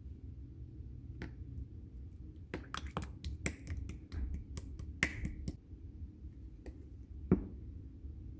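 Cream slime being worked by hand, giving sharp little pops and clicks as trapped air bursts: a quick run of them in the middle, with a few single pops before and after.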